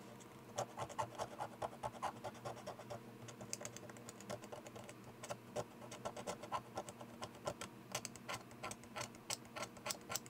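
Utility knife blade scraping the metal end of a AA Ni-MH battery: a run of short, irregular scratchy strokes, several a second, rubbing off the oxidised surface so solder will stick.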